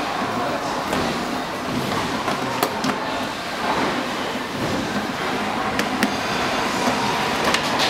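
Hard plastic body parts of a children's electric ride-on buggy being handled and pressed into place, with a few sharp clicks and knocks over a steady background noise.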